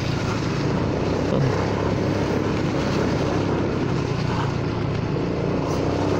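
Honda Forza 300's single-cylinder scooter engine running steadily at low speed in slow traffic, a constant drone over steady road noise.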